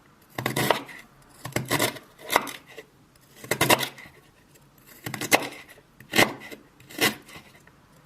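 Kitchen utensils knocking and clinking against dishes in separate, irregular strikes, roughly one a second, some in quick clusters.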